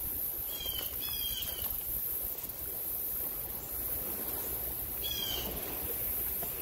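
Woodland insects keep up a steady, high-pitched chorus. Over it a bird gives short, falling calls, twice near the start and once about five seconds in.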